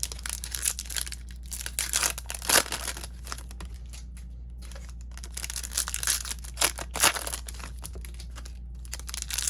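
Trading card packs being opened by hand: foil wrappers tearing and crinkling in irregular rustles, over a steady low hum.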